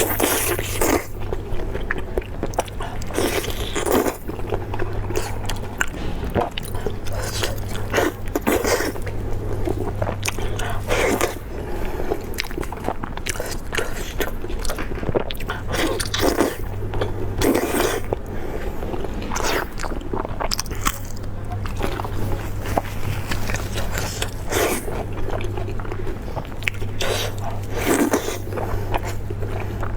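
Close-miked eating: repeated biting and chewing with crunches, in irregular bursts, over a steady low hum.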